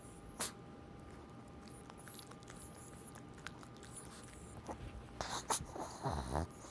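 A small long-haired dog chewing and licking a plush ball toy: soft wet mouthing with faint clicks, growing louder and busier in the last couple of seconds.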